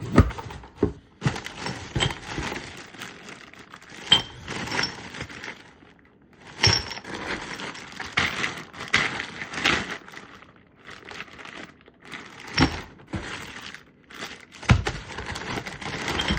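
New metal pipe fittings being handled and set down: small metallic clinks and clatter with a few short ringing pings, mixed with rustling and crinkling.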